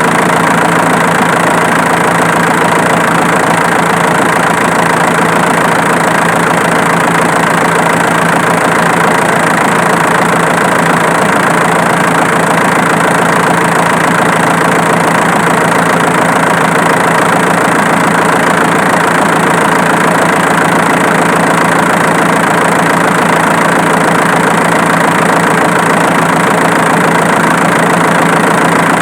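Diesel engine idling steadily at close range, with no change in speed. Its loose alternator belt slips with a 'tac' click only when the engine is loaded and then let off.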